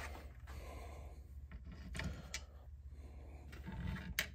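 A few faint clicks and light knocks of metal on wood as a flintlock rifle's lock is handled and seated into its wooden stock, with a sharper click about four seconds in.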